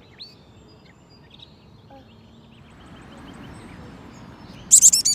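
Baby bird out of the nest cheeping: faint high chirps, then near the end a sudden run of loud, shrill, rapid cheeps, a fledgling calling for its parent.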